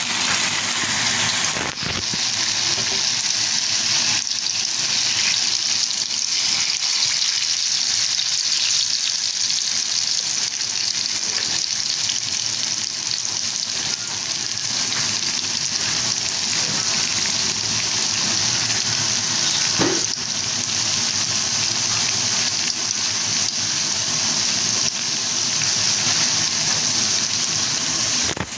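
Seasoned, flour-coated tofu balls deep-frying in hot oil in a wok: a steady, dense sizzle of bubbling oil.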